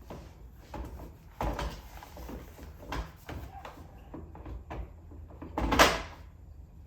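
Infant car seat being handled and fitted into a car's back seat: a string of irregular knocks and scuffs, with the loudest thump about six seconds in.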